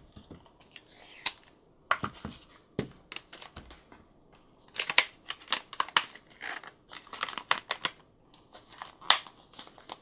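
Hard plastic pieces of a Frozen Flip 'N Switch Castle toy playset clicking, tapping and scraping as they are handled and fitted together. The clicks come irregularly, busier about five to seven seconds in, with one sharp click about nine seconds in.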